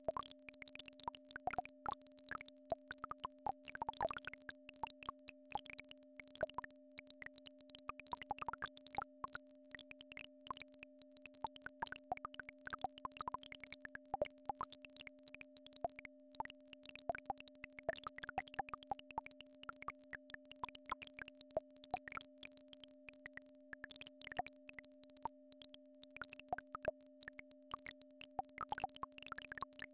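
Synthesized entrainment tones: two steady electronic pitches roughly an octave apart, held without change, under a dense scatter of irregular clicks and short gliding blips.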